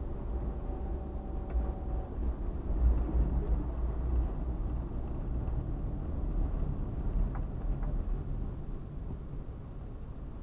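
Fiat Uno driving slowly through town, heard from inside the car: a steady low rumble of engine and road, with a faint engine hum that fades out about two seconds in.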